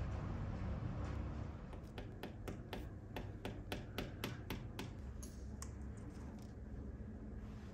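Small hammer tapping a nail into a wall: about a dozen quick, light, evenly spaced taps, about four a second, followed by a few softer clicks.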